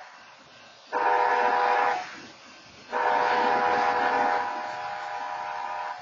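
Multi-chime train horn chord sounding a short blast about a second in, then a long blast of about three seconds near the end. These are the closing short and long of a long-long-short-long grade-crossing signal.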